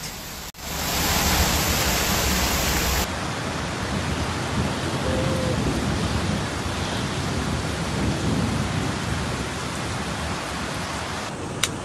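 Heavy rain pouring steadily in a storm, a dense, even hiss. The sound changes abruptly about three seconds in.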